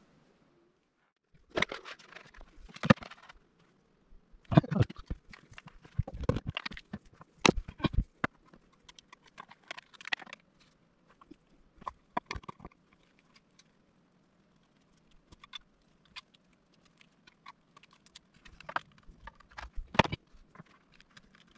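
Hands handling action-figure packaging and parts: clear plastic blister tray crinkling and rustling, with irregular sharp clicks and knocks as pieces and clear display stands are taken out and set down, and a quieter pause about two-thirds of the way through.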